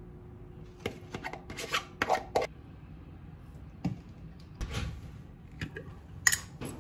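Irregular light knocks, taps and rubbing from objects being handled, with a quick cluster of taps from about one to two and a half seconds in and single sharper knocks later on.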